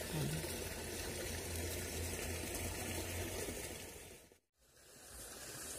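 Steady rush of flowing river water, dying away to silence for a moment about four and a half seconds in, then returning.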